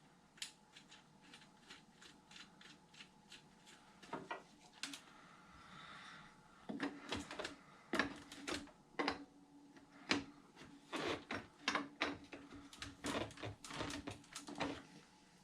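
Scattered light clicks and taps of small tools and parts being handled, more frequent in the second half, as the wheels go back on an RC truck and the locking wheel nuts are tightened. A faint steady hum runs under the middle part.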